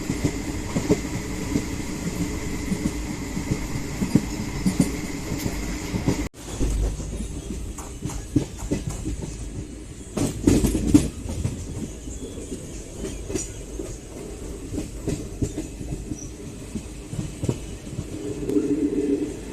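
Train running, heard from on board: a steady rumble with the wheels clicking over the rail joints. The sound drops suddenly about six seconds in and carries on more quietly.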